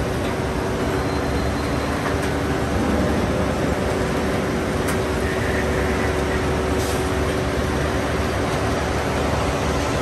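Steel rolling mill running: the roll stands and their drives make a steady, loud mechanical din with a constant hum as red-hot bar passes through the rolls. There are two short metallic clicks, about five and seven seconds in.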